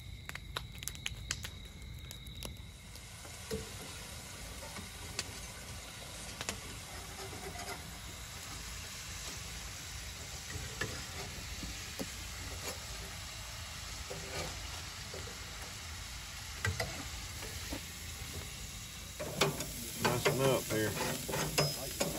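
Wood campfire crackling and popping for the first couple of seconds, then a steady sizzle of food frying and cooking on the heat.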